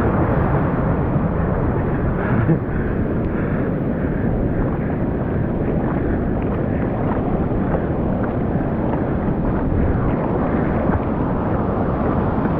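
Ocean surf and wind buffeting the microphone: a steady, dull rushing noise with no distinct events.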